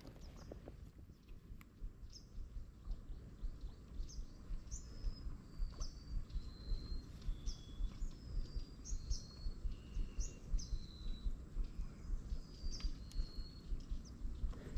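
Wild birds calling: a string of short, high whistled notes, each dipping slightly in pitch, about one or two a second at varying pitches. An uneven low rumble runs underneath.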